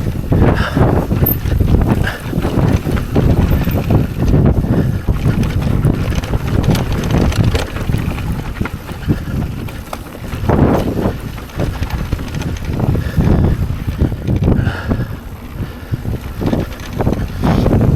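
Strong wind buffeting the microphone: a loud, gusting low rumble that surges and eases.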